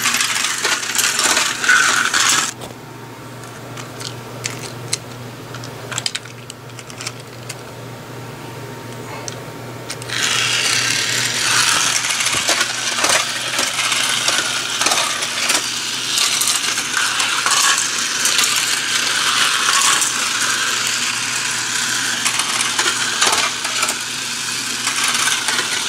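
Battery-powered light-up toy race cars running on a flexible plastic segmented track and over 3D-printed bump ramps: a fast, dense clicking and rattling of small wheels over the plastic track. It drops back after a couple of seconds and comes back loud about ten seconds in.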